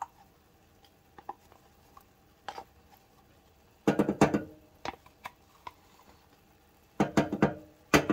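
A wooden spoon knocking and scraping against a plastic measuring cup and saucepan as thick sour cream is scooped into the pan: a few scattered light taps, then a short cluster of clattering knocks about four seconds in and another near the end.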